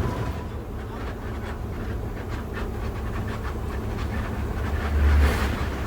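Low rumble of the ALS 270 intercity bus under way, heard from inside the bus: engine and road noise with light rattles, swelling briefly about five seconds in.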